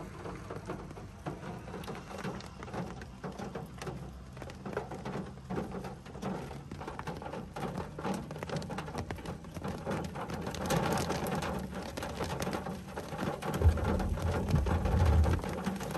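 Rain pattering on a car's roof and windshield, heard from inside the car with its engine off. The rain grows heavier about ten seconds in, and a low rumble comes near the end.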